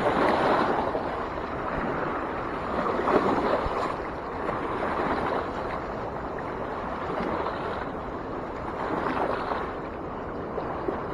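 Fast-flowing river water rushing steadily, loud enough to drown out a voice, swelling and easing slightly in level.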